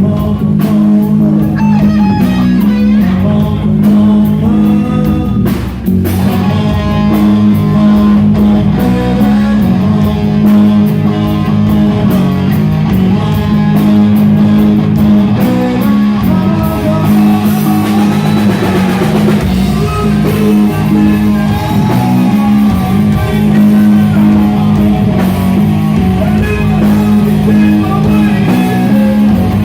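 Rock band playing live, an electric guitar over bass and a drum kit.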